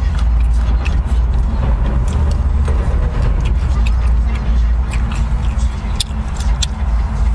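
Steady low rumble of a car idling, heard inside the cabin, with scattered short clicks from chewing and chopsticks.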